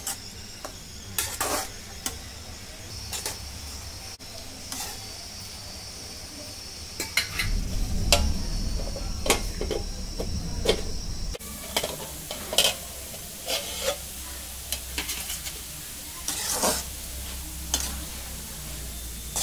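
Metal spatula stirring and scraping chopped amaranth greens (siru keerai) frying in an aluminium kadai, with a steady sizzle under short clinks of the spatula against the pan. About a third of the way in there are louder knocks as the pan is handled and a steel plate is set over it as a lid.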